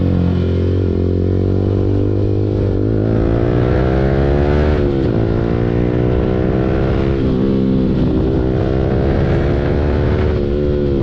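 Yamaha R15 V4's 155 cc single-cylinder engine through an aftermarket Akrapovic full-system exhaust under way. The engine pitch climbs and drops back several times as the bike accelerates and changes gear, with wind and road noise.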